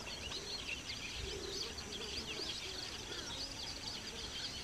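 Outdoor chorus of small birds: many quick, high chirps and twitters overlapping throughout, over a low steady background rumble.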